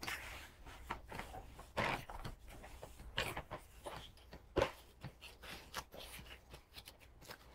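Gloved hands mixing and squeezing soft tortilla dough in a plastic bowl: faint, irregular squishing and rustling with a few light knocks.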